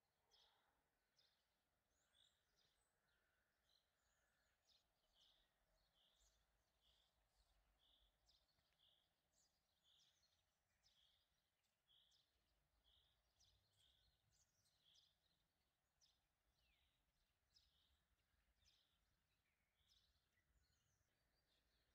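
Very faint bird chirping: short high chirps repeating about once a second in a steady series, over near silence.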